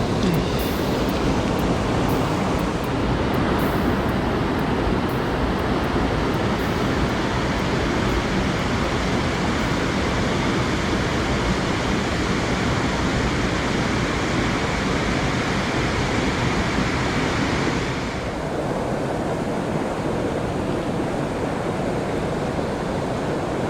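Mountain stream water running over rocks, a steady rushing noise; about three quarters of the way through, its higher hiss drops away abruptly and it sounds duller.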